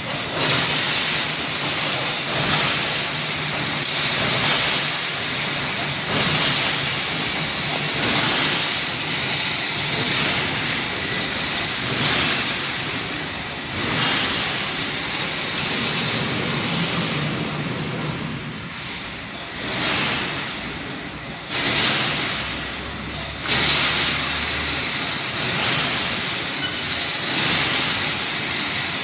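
Wire mesh welding machine running, a continuous industrial clatter and hiss that swells in a repeating cycle about every two seconds as the machine works through its welding strokes.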